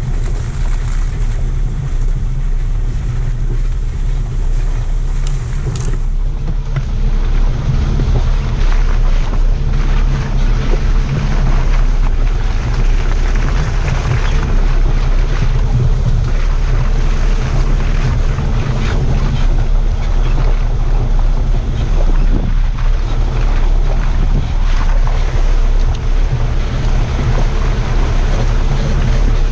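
Steady, low rumble of a 4x4 driving slowly along a muddy, rutted track, its engine and tyres mixed with wind buffeting on the vehicle-mounted microphone.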